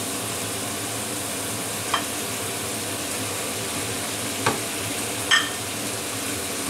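Gravy simmering in a frying pan on a gas burner, a steady hiss, as whole fried cauliflower heads are slid into it with a wooden spatula. Three light knocks of the spatula and plate against the pan: about two seconds in, then twice close together past the middle, the last with a short ring.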